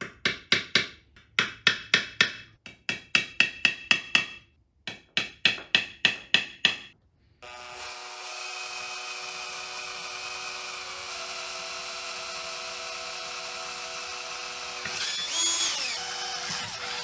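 A hammer taps a punch against the aluminium cavitation plate of an outboard's lower unit, in four quick runs of sharp metallic taps. Then a Makita 18V cordless drill runs steadily, boring through the plate, and its whine wavers near the end.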